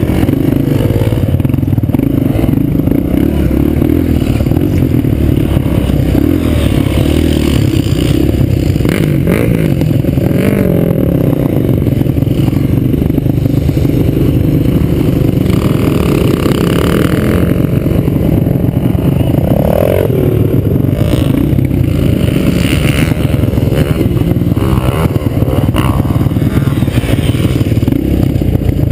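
Suzuki LT-Z250 quad's four-stroke single-cylinder engine running hard, heard close up, its revs rising and falling a few times as the machine is ridden.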